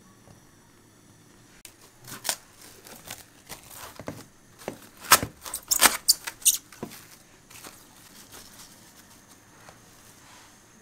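Plastic cling film pulled off its roll and stretched over a round baking pan: a run of sharp crinkles and crackles, loudest about five to six and a half seconds in.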